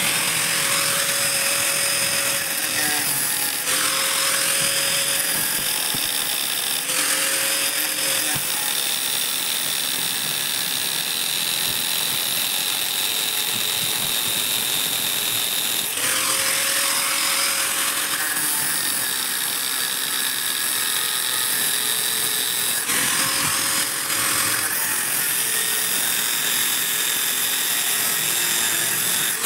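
Bosch angle grinder cutting through a motorcycle's steel centre stand with an abrasive disc, to free a stand whose pivot pin will not come out. It runs continuously, its motor whine coming through in stretches and changing several times as the disc bites into the metal and eases off.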